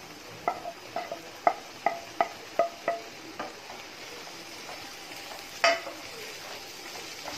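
Wooden spatula pushing fried soya chunks into a coated pan of thick masala gravy and stirring them: a run of about eight light knocks, two or three a second, then a soft steady sizzle with one sharper knock later on.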